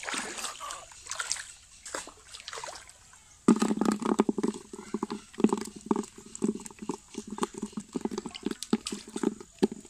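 Shallow, muddy pond water splashing and sloshing as hands feel through it for small fish. About three and a half seconds in, it turns into a louder, dense run of close, quick sloshes and knocks.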